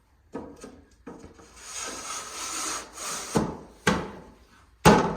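Wooden panel of a cot drawer being slid along its groove with a long scraping rub, then three sharp wooden knocks as the drawer parts are pushed home, the last knock the loudest.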